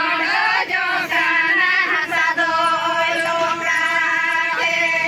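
A group of voices singing a chant-like song together in long, held notes.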